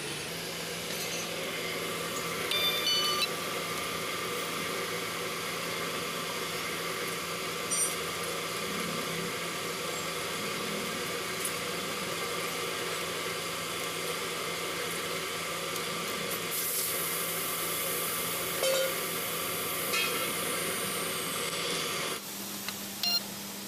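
Drill press motor running steadily while its bit drills out the rivets that hold the worn friction lining to a truck clutch disc, with a few short metallic clicks. A high hiss joins in for the last several seconds and stops near the end.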